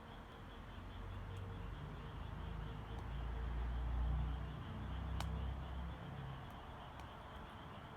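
Garden bonfire burning, with scattered sharp pops and crackles over a low rumble that swells for a few seconds in the middle. A faint, steady, high pulsing chirr runs underneath.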